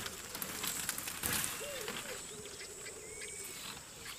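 Bush ambience: a steady high insect hum with birds calling, including repeated low notes that rise and fall and a longer warbling call. A brief rustle comes about a second and a quarter in.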